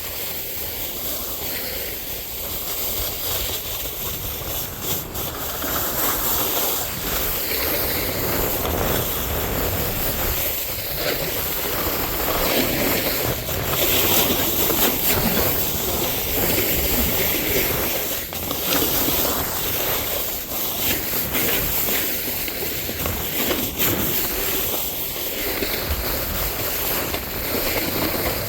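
Snowboard riding through wet spring slush: a steady rushing hiss of the board scraping and sliding over the slushy snow, swelling and easing a little with the turns.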